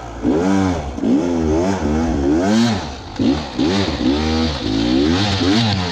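Beta 300RR two-stroke dirt bike engine revving up and dropping back again and again, about eight times, as the throttle is worked while riding.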